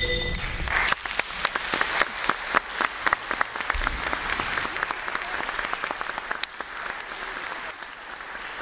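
Audience applauding, starting with a burst about half a second in and thinning out toward the end. At the very start the last ringing note of the mallet percussion cuts off.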